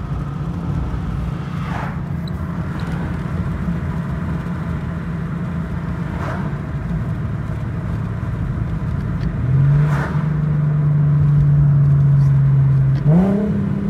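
Infiniti Q50 exhaust with the mufflers removed, the engine droning steadily while driving. About nine and a half seconds in the note steps up in pitch and gets louder, then holds. Near the end it jumps up again quickly, the car's automatic rev matching blipping the revs on a downshift.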